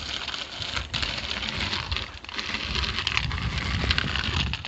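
Bicycle riding along a rough road: tyres rolling and the bike rattling, with wind on the microphone, as one even, unbroken noise.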